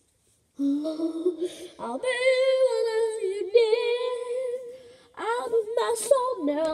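A girl singing long held, wavering notes into a handheld karaoke microphone, breaking off briefly about five seconds in before going on.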